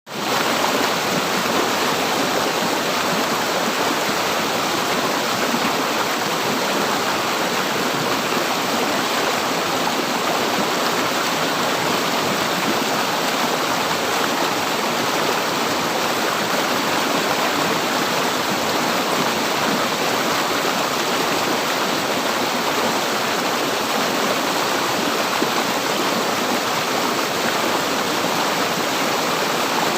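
River water flowing: a steady, even rushing that fades in at the very start.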